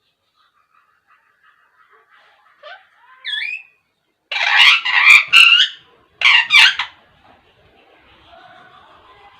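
Pet parakeet calling: two short softer calls, then a run of loud, harsh squawks about four seconds in and another short burst a second later.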